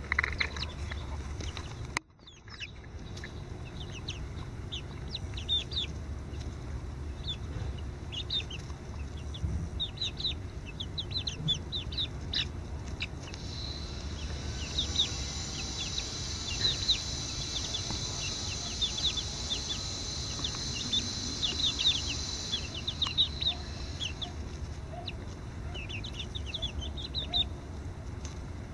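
Five-week-old chicks peeping: many short, high peeps scattered throughout. A steady high hiss joins in about halfway through and stops shortly before the end.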